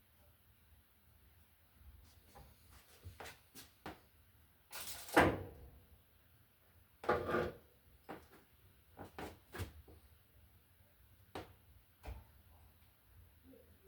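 Irregular clicks and knocks from hand tools and wiring parts being handled, the two loudest, somewhat longer clatters about five and seven seconds in, with lighter clicks around them.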